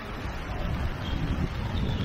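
Wind buffeting the microphone of a camera moving downhill with a skier: a steady, uneven low rumble.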